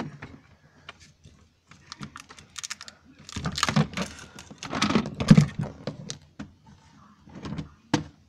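Handling noise: irregular small clicks and taps, with a denser, louder stretch of knocking and rustling in the middle, as the camera and toys are moved about close over a fabric surface.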